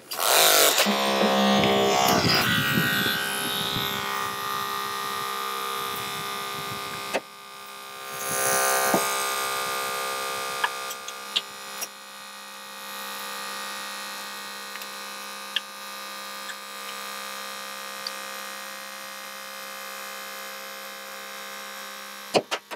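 Holmatro hydraulic rescue cutter and its power unit running, cutting through a car's subframe between the strut tower and the firewall. A steady hum is heard throughout; its pitch drops over the first few seconds as the tool takes load. A louder noisy surge comes about eight seconds in, and scattered sharp clicks and snaps follow.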